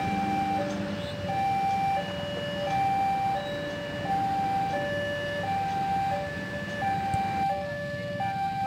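Level-crossing warning alarm sounding an electronic two-tone chime, a lower and a higher tone alternating about every half second. Beneath it is the low rumble of the passing train.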